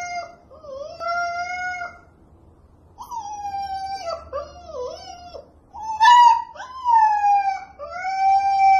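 Husky puppy howling: a string of high, drawn-out calls about a second each, with a few shorter wavering calls in the middle.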